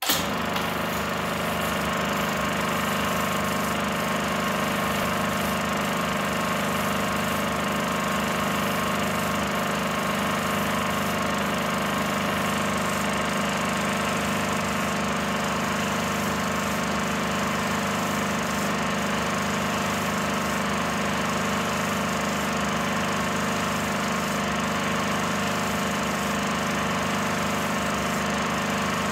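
16mm film projector running: a steady mechanical whir of its motor and film transport, with a faint slow regular pulse.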